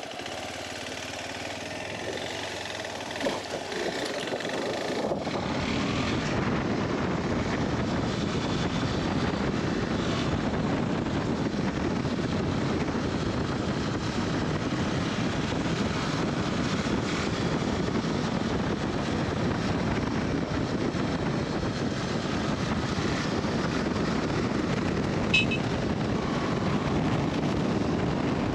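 KTM 390 Adventure's single-cylinder engine running under way, getting louder about five seconds in and then holding steady. A brief sharp click comes near the end.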